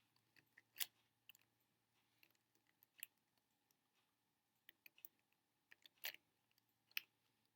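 Scattered light clicks and taps of plastic speedcube pieces being handled and fitted together, in irregular ones and twos, the sharpest a little under a second in, about three seconds in, and around six and seven seconds in.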